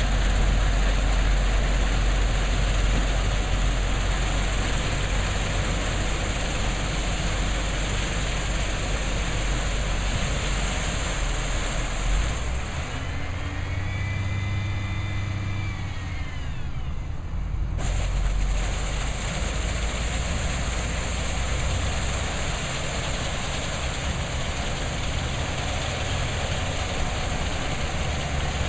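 Cotton module truck's engine running steadily while the truck's moving floor unloads round cotton bales. Midway, for about five seconds, a pitched engine note rises and then falls.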